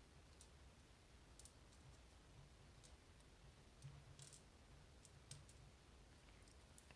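Faint, scattered light clicks of small metal lock parts and tools being handled over very quiet room tone, about a dozen ticks, some in quick little clusters.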